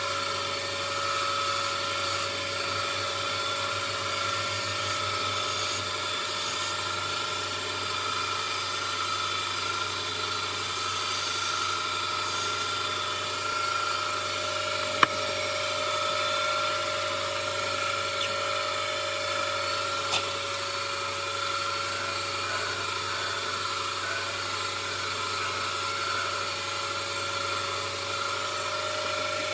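Wood lathe running at speed with a steady whine while a hand-held turning tool cuts a small wooden handle spinning on it. Two sharp clicks come about halfway and about two-thirds of the way through.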